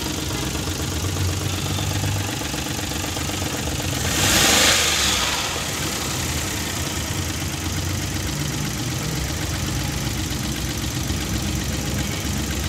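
Daihatsu Hijet's three-cylinder engine idling steadily just after starting, the misfire from a faulty valve now gone and the running smooth. A brief loud hiss about four seconds in.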